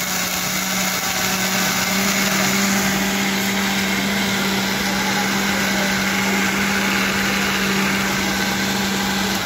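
Countertop blender motor running steadily at high speed, blending a mango shake, with a held hum over the whirring; it switches off at the end.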